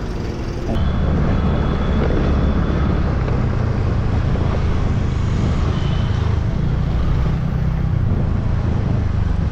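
Steady low rumble of vehicle traffic noise that jumps louder just under a second in, then holds steady.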